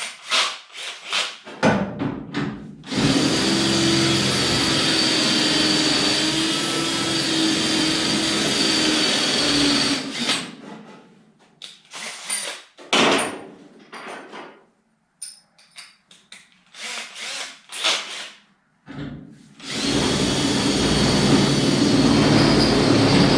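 Electric drill boring holes, running steadily with a fixed whine for about seven seconds, then stopping. Scattered knocks and clicks follow before the drill runs again near the end.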